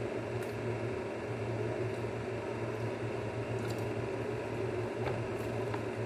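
Steady background hum and hiss, with a low drone and a few faint clicks.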